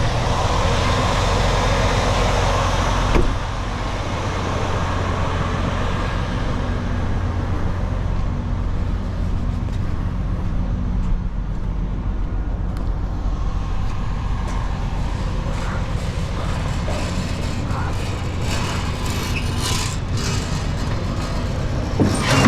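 Semi truck's diesel engine idling steadily, with a single knock about three seconds in and some light clatter near the end.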